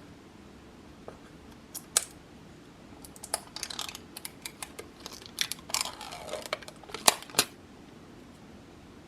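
Handling noise: a run of sharp clicks and scratchy rustling, with two louder clicks near the end.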